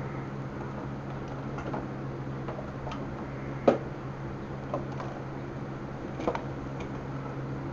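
Scattered metal clicks and clinks of hand tools, the sharpest about three and a half seconds in, over a steady low hum.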